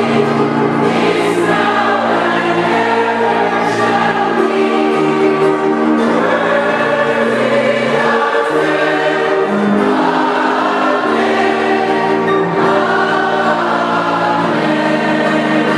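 A group of voices singing a hymn together in harmony, with held notes that move to a new chord every second or two.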